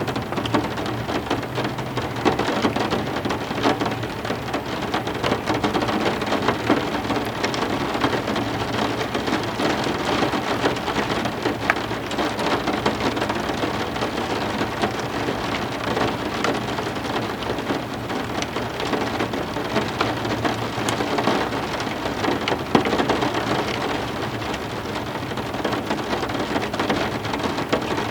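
Steady heavy rain, dense with the crackle of many close individual drops striking a surface, at an even level throughout.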